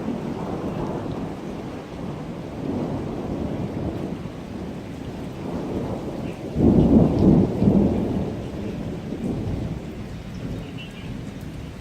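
Thunder rumbling from a nearby thunderstorm over the steady hiss of heavy rain. About six and a half seconds in a sudden, louder peal breaks in and rolls for a couple of seconds before dying away.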